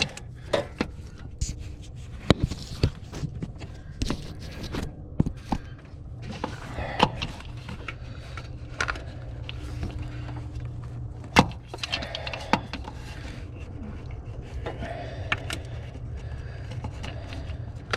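Scattered light clicks and knocks as spark plug wires are handled and pushed onto the distributor cap of a Jeep 4.0 engine, over a steady low hum.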